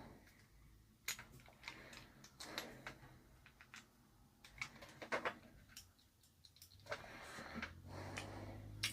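Faint, scattered clicks and taps of hands working on a mains plug and its flex, irregular and separated by quiet gaps.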